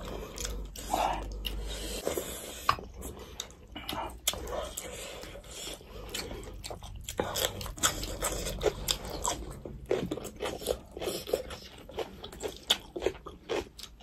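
Two people chewing and lip-smacking as they eat rice and curry by hand, with crisp crunches from biting into raw red chilli. The wet clicks and smacks are irregular, several a second.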